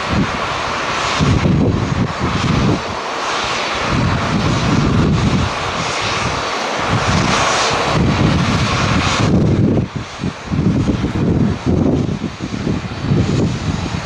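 Rolls-Royce Trent XWB jet engines of a taxiing Japan Airlines Airbus A350, running with a steady rushing whine, while gusts of strong wind buffet the microphone. About nine seconds in, the engine sound drops away, leaving mostly gusty wind rumble.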